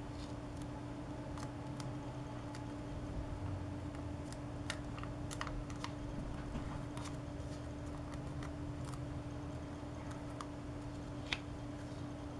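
Paper crinkling and clicking in scattered small crisp ticks as a small sheet of origami paper is creased and pinched by hand, with one sharper click near the end. A steady low hum runs underneath.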